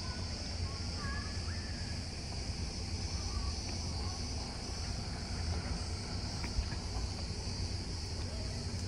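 Steady, high-pitched chorus of insects with a steady low hum underneath.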